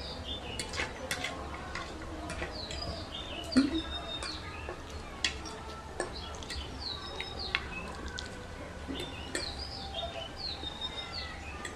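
Small birds chirping repeatedly in the background, short high calls every second or two, over scattered sharp clicks of metal forks against plates as noodles are eaten.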